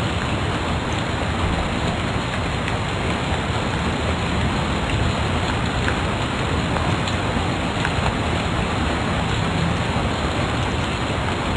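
Steady, even hiss of background noise, with a few faint clicks.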